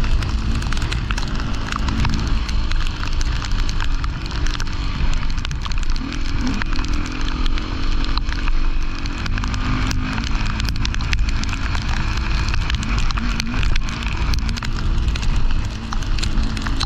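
Off-road rally motorcycle running steadily over a dirt stage, its engine note wavering under a rush of wind and a constant crackle of many sharp clicks from gravel and stones.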